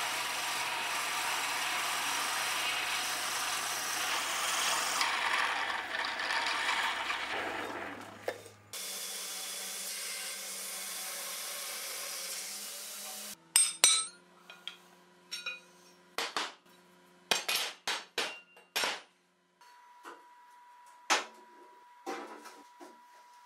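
A drilling/milling machine's cutter running steadily through a steel plate held in a vise. About nine seconds in, a belt grinder takes over, grinding the plate's steel edge. From about halfway on, a series of sharp metal clanks and knocks as steel plates are handled and fitted.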